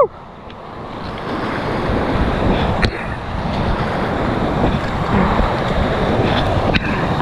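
Whitewater rapids rushing and splashing around a kayak, mixed with wind buffeting the microphone; the noise starts faint and builds over the first second or so, then holds steady, with a couple of sharp knocks.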